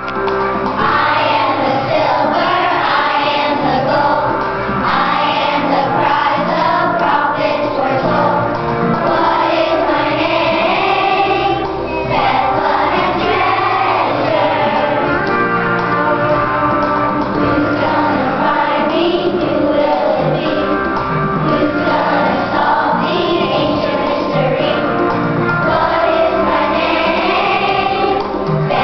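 Children's choir singing a song together, with accompaniment underneath.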